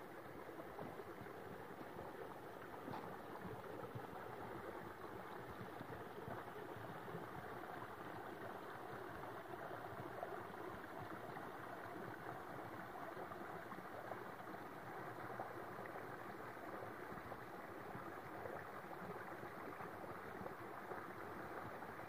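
Creek water flowing steadily over its bed, a constant rushing with no changes.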